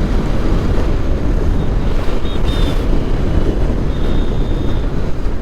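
Heavy wind noise buffeting the microphone of a moving motorcycle, over a steady low road rumble.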